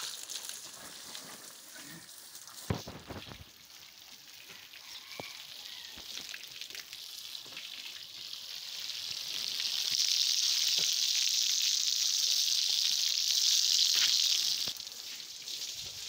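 Water spraying hard from a garden hose, thumb-pinched at the nozzle, hissing onto a cow's wet hide and splashing on the ground. The hiss grows louder from about ten seconds in and drops back about five seconds later. A single sharp knock sounds about three seconds in.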